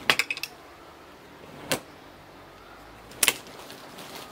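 Wooden clothes hangers clacking against a clothes rail as garments are pulled off and held up: a quick cluster of clacks at the start, then two more single knocks about a second and a half apart.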